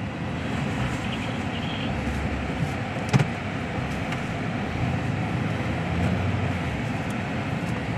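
A truck's engine running under load while its tyres push and churn through deep snow as the truck bogs down and gets stuck. A single short knock sounds about three seconds in.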